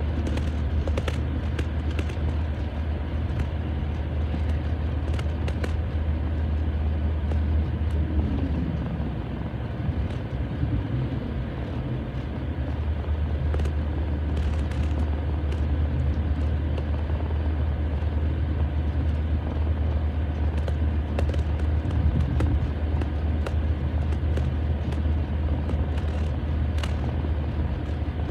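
Steady low road and engine rumble inside a moving car's cabin, easing for a few seconds about ten seconds in, with a few faint light clicks.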